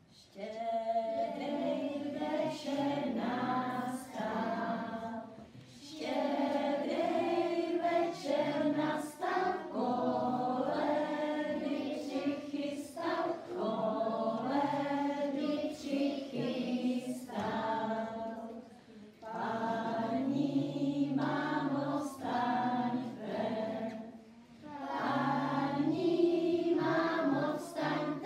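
A group of young children singing a song together, in sung phrases with brief pauses between them.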